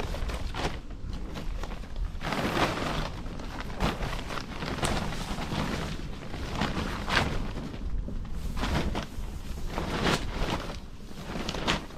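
Footsteps on the forest floor: an uneven series of short rustling steps, often two close together and then a pause.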